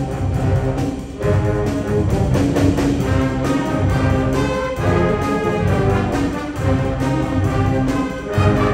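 An eighth-grade school concert band playing, brass and woodwinds together, with strong low brass notes under sustained chords; the level dips briefly about a second in.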